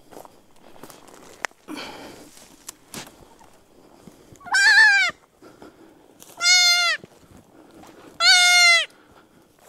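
Axis deer fawn bleating: three loud, high calls of about half a second each, roughly two seconds apart, starting about halfway in. Before them, a few sharp clicks and a brief rustle.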